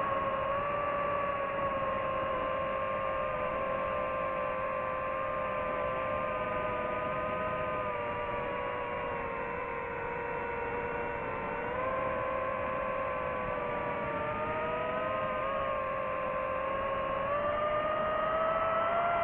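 DJI FPV drone's brushless motors whining steadily in flight, the pitch sagging a little early on and rising again about twelve seconds in and near the end.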